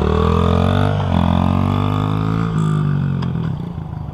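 Honda CRF50's small single-cylinder four-stroke engine revving as the bike pulls away: the pitch climbs, dips about a second in, climbs again, then drops and fades near the end.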